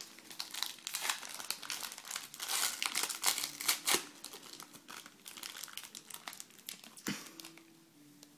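Foil hockey-card pack wrapper being torn open and crinkled by hand, a dense crackling that is loudest about three to four seconds in and thins out afterwards. There is a single sharp click about seven seconds in.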